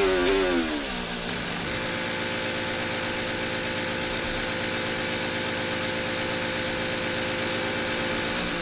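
Formula 1 car's turbocharged V6 hybrid engine heard onboard, its revs falling over about the first second as the car brakes and downshifts into the pit lane. It then holds a steady, even drone, the sign of the car sitting on the pit speed limiter at 80 km/h.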